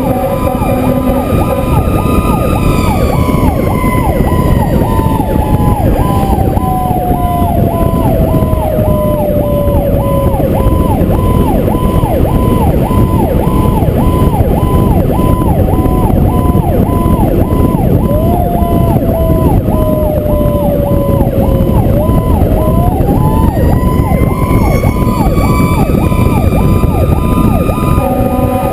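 Fire truck sirens while responding: an electronic siren warbles about twice a second, and a second siren tone slides slowly down, then climbs back up and holds near the end. Steady lower tones sound at the start and again near the end. Heavy wind and road rush buffets the camera, which is mounted outside the cab.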